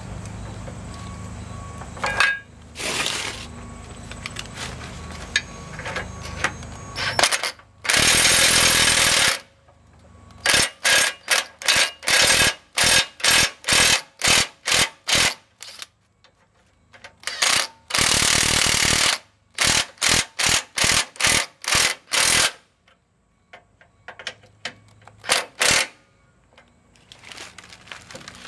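Ryobi cordless impact driver with a socket running bolts through the push-bar bracket into the truck's frame. It hammers in one long run, then in a string of short trigger bursts to snug the bolt, and does the same again for a second bolt. Lighter clinks and rattles of the bracket being handled come in the first few seconds.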